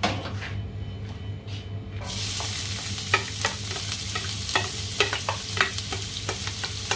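Diced onion hitting hot olive oil in a nonstick frying pan: a steady sizzle starts suddenly about two seconds in. A cooking spoon taps and scrapes against the pan several times as the onion is stirred.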